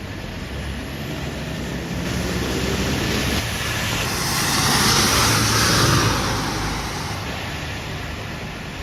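A road vehicle passing close by, its engine and tyre noise swelling to a peak about five to six seconds in and then fading, over steady traffic noise.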